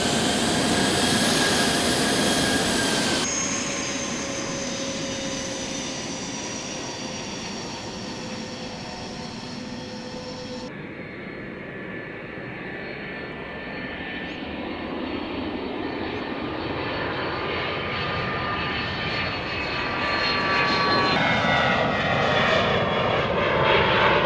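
Jet aircraft engines whining on a runway as the plane takes off, with several high whining tones sliding slowly down in pitch. The sound grows louder again near the end as the jet climbs away.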